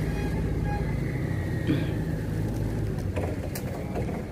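An engine running, a steady low drone that fades near the end.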